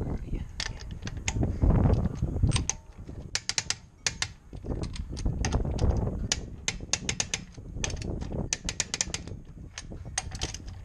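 Socket ratchet clicking in quick runs as wheel nuts are spun onto a wheel, the pawl ratcheting while the socket is turned by hand. A low rumble sits under it, strongest twice in the middle.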